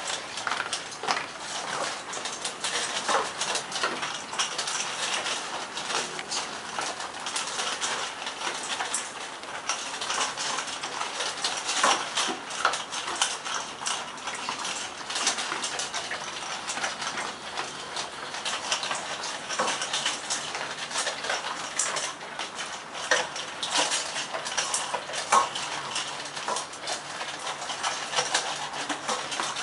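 Several Airedale Terriers eating dry kibble from stainless steel bowls: a dense, irregular run of crunching and chewing, with the metal bowls clinking and rattling as the dogs push into them.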